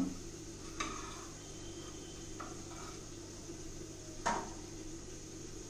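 Steel baking plate being drawn out of a convection microwave oven, scraping and clinking against the metal rack: a light clink about a second in and a sharper metallic knock about four seconds in, over a steady low hum.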